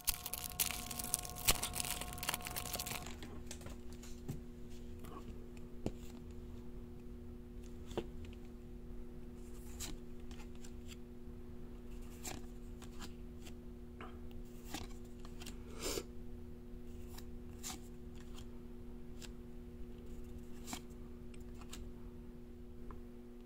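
A Yu-Gi-Oh foil booster pack is torn open by hand, giving about three seconds of crinkly tearing. The cards are then flipped one by one, each making a soft click or snap every second or two.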